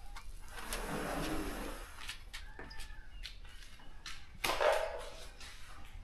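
Sliding glass door being slid open, a rumbling rush along its track from about half a second to two seconds in, with scattered clicks and knocks. A louder sharp knock comes about four and a half seconds in.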